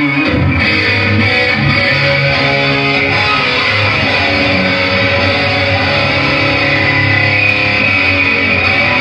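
Electric guitar played on its amp's distorted main channel during a soundcheck, with held chords and notes that change every second or so.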